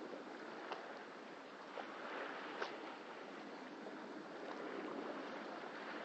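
Small sea waves lapping against a wooden jetty: a steady wash of water with a few sharp slaps and splashes.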